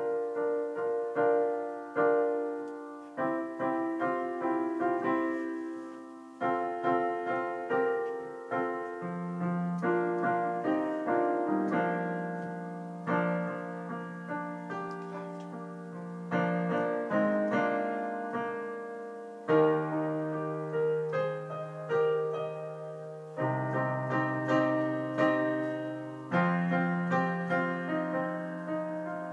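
Solo piano playing: chords and melody notes struck and left to ring and fade, with held bass notes joining about nine seconds in.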